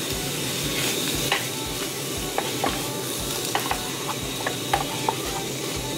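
Shrimp, baby scallops and squid sizzling over high heat in a small Teflon-coated aluminium folding frying pan. A wooden spatula stirs them, with several sharp taps and scrapes against the pan from about a second in.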